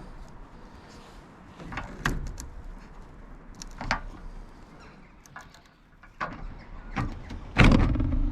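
Metal knocks and scrapes as a bolt is forced along a steel unistrut channel, with the loudest, longest scrape near the end.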